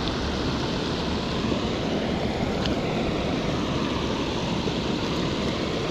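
Steady rush of water pouring over a low concrete dam.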